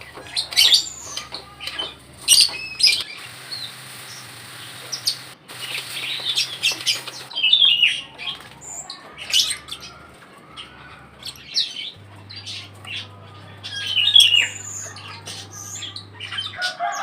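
Birds chirping and squawking in quick short calls, with scattered sharp clicks.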